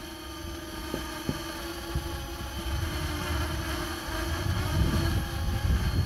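Parrot Anafi quadcopter's propellers buzzing steadily with a held tone as it hovers close by, turning slowly on the spot, over an uneven low rumble.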